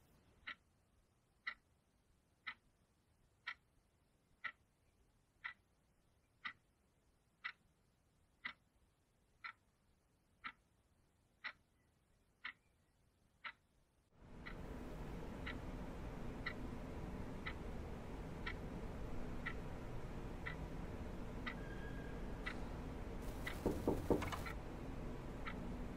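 A clock ticking steadily, about once a second. About halfway through, a steady room hum comes in under the ticks, and a few soft thuds sound near the end.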